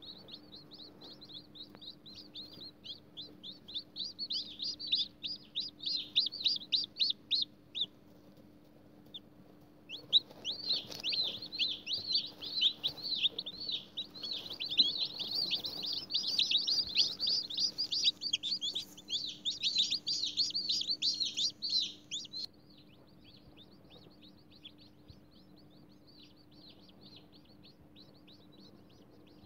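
Newly hatched chicken chicks peeping: rapid, high-pitched chirps in loud bouts that drop away to fainter peeping about three-quarters of the way through.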